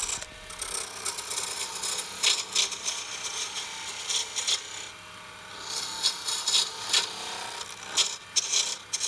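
Wooden doorknob blank spinning on a wood lathe while a turning tool cuts it, making an irregular scraping and shaving sound that comes and goes in strokes as the tool is pushed into the wood.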